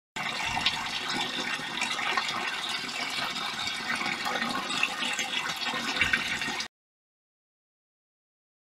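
Rushing, splashing water noise that runs for about six and a half seconds and then cuts off suddenly.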